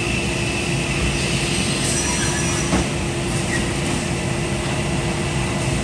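Holzma HPP 350 panel beam saw running, a steady mechanical hum with a constant tone, with one light knock a little under halfway through.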